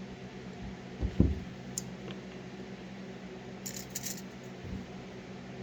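Light knocks and small clinks of objects being handled during sneaker cleaning, a couple of knocks about a second in and a few faint clinks midway, over a steady low hum.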